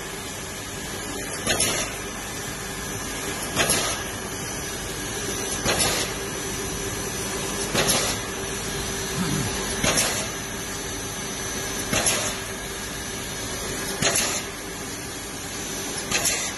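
Mamata pouch bag-making machine running: a steady hum and hiss, with a brief loud stroke about every two seconds as it cycles through its sealing and cutting.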